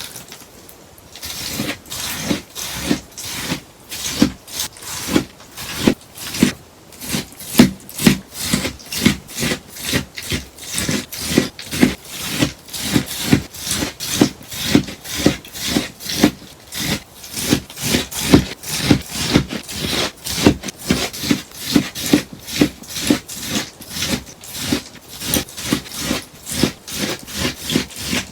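A sponge being cut in a steady run of crisp snips, about two a second.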